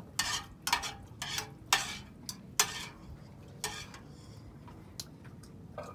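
Ramyun noodles being slurped, about six short noisy slurps in the first four seconds, then quieter.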